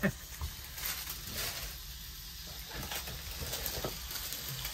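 Food sizzling in a frying pan: a faint, steady hiss with a few light clicks.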